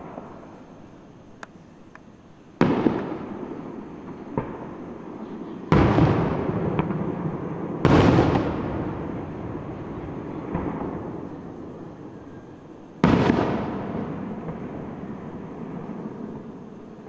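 Aerial fireworks shells bursting overhead: four heavy booms, each trailing off in a long rolling echo, with a few smaller sharp cracks between them.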